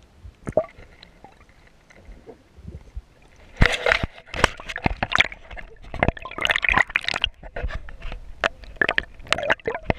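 Water sloshing and splashing around a GoPro in a flooded ditch, heard from the camera itself. The first few seconds are quiet with a few isolated clicks, then from about three and a half seconds in comes a busy, irregular run of splashes and knocks against the camera.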